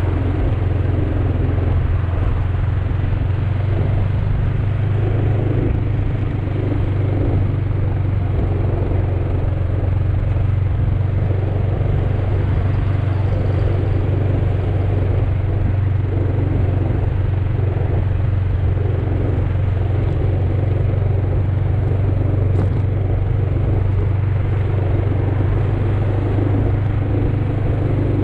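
Motor scooter engine running steadily at cruising speed, with wind and road noise, heard from the rider's own scooter.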